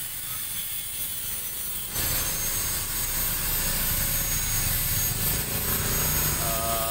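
Yamaha NMAX 155's single-cylinder engine running through an aftermarket stainless-steel exhaust, a steady low exhaust note that gets louder about two seconds in.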